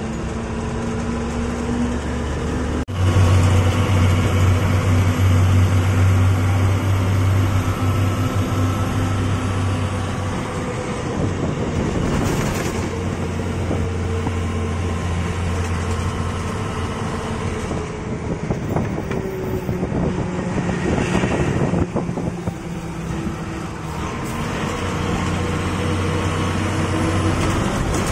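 Bus engine running steadily under way, heard from inside the driver's cab, with road and wind noise. The engine drone gets suddenly louder about three seconds in.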